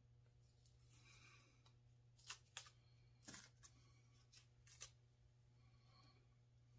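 Faint crinkling and small ticks of clear tape and a paper pattern being peeled by hand off small scroll-sawn wooden letters, with a few sharper ticks in the middle, over a steady low hum.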